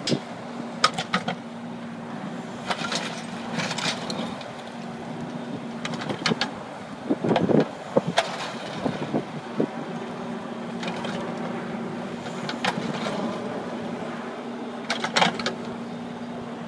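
Case mini excavator's diesel engine running steadily under load while it digs soil, with sharp clanks and knocks from the bucket and arm every few seconds and a louder scraping burst about halfway through.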